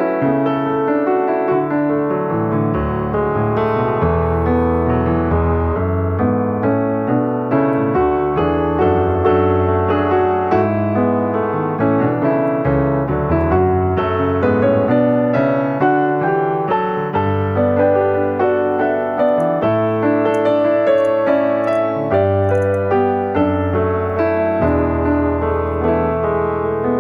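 Piano music: a melody of quick notes over held bass notes.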